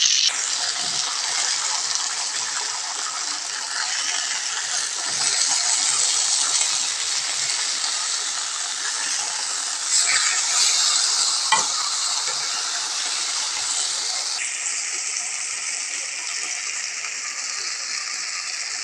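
Chicken breast pieces sizzling in a frying pan, a steady hiss. A little past halfway, a metal spoon clinks and scrapes against the pan a couple of times as the pieces are turned.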